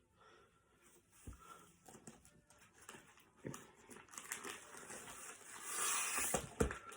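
Paper rustling and crinkling as a wrapped present is handled and unwrapped, with a few soft knocks, growing louder in the second half.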